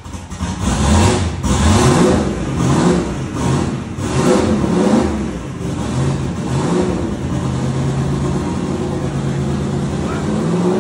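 Turbocharged Fox-body Ford Mustang engine on its newly installed, untuned Holley EFI, revved in several blips, then settling to a steady idle about halfway through.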